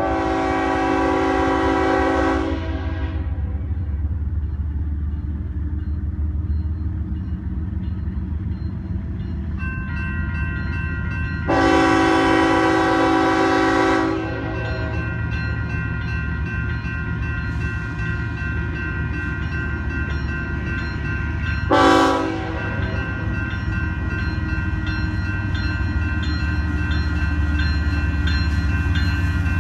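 Diesel freight locomotive horn sounding the grade-crossing signal on approach: two long chord blasts, the second about eleven seconds in, then a short blast about twenty-two seconds in. The crossing's warning bell starts ringing about ten seconds in, over a steady low train rumble.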